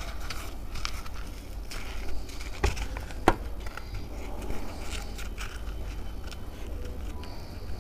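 Eating sounds of crisp tandoori roti being torn, bitten and chewed: irregular crackles and crunches, the sharpest a few seconds in, over soft mouth noise.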